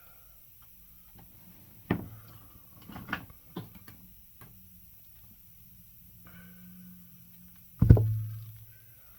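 Knocks and clatter of work on a cobbler's bench: one sharp knock about two seconds in, a few lighter knocks after it, and a heavy thud near the end that leaves a low ring.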